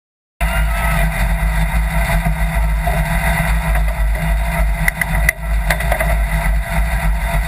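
Sand rail's engine idling steadily, starting abruptly about half a second in, with a few sharp clicks around the middle.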